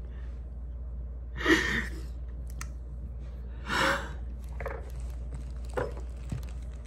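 A woman crying with sobbing, gasping breaths: two loud sobs about a second and a half and about four seconds in, with weaker catches of breath after them.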